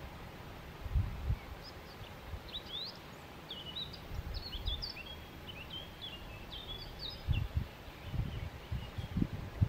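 Small songbirds chirping and twittering for several seconds in the middle, over a steady outdoor hiss, with low gusts of wind bumping the microphone every second or two, strongest near the end.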